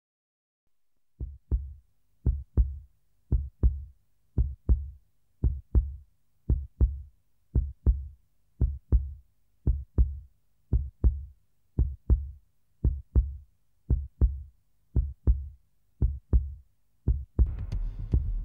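Heartbeat sound effect: paired low thumps, a double beat about once a second, starting about a second in. Near the end a low rumbling hum comes in under the beats.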